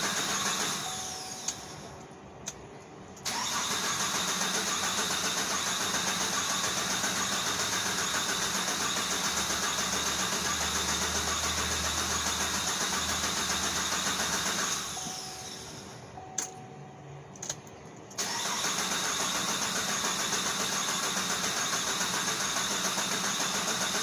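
Car engine cranked on the starter motor without catching: a steady, evenly pulsing whirr for about eleven seconds. After a pause of a few seconds with a couple of clicks, it cranks again.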